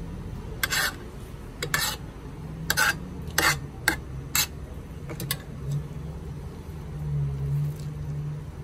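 A metal spoon scraping and clinking against a metal serving tray in a series of about eight short strokes over the first five seconds, gathering minced meat off the tray.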